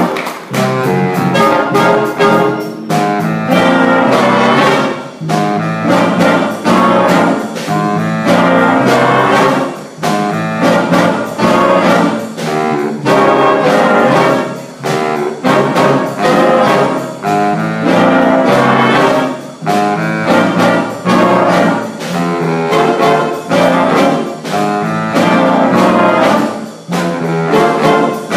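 School jazz band playing a loud ensemble passage: a saxophone section that includes a baritone sax, with trombones and trumpets, in accented phrases that swell and dip every couple of seconds.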